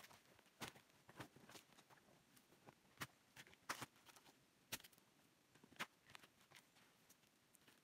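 Faint crinkling of a woven plastic sack and crackling of dry forest litter as the sack and the hairy fern rhizomes are handled: a scattering of short, sharp crackles and taps, a few of them louder than the rest.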